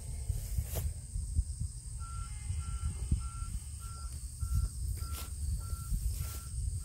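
Excavator's warning alarm beeping at a steady pace, about two beeps a second, starting about two seconds in, faint under a low, uneven rumble.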